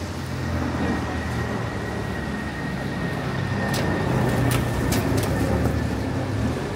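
A motor vehicle running close by in the street: a steady low engine rumble with a faint high whine over it. A few sharp clicks come about four to five seconds in.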